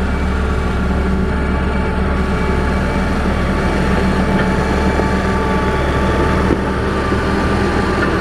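Caterpillar 140H motor grader's diesel engine running steadily under load, with a brief knock about six and a half seconds in.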